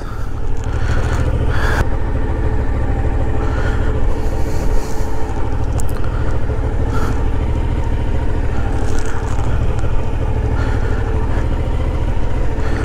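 Suzuki V-Strom 650 XT's V-twin engine running steadily at low speed through tight slow-speed turns.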